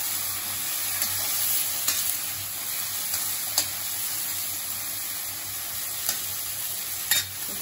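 Chopped onions and tomatoes sizzling in mustard oil in a kadai while a spatula stirs them. A few sharp clicks of the spatula striking the pan sound through it, the loudest near the end.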